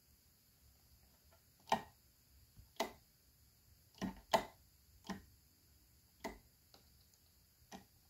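Wall toggle light switches being flipped by hand: about eight sharp clicks at uneven intervals, two in quick succession about four seconds in, one of them fainter.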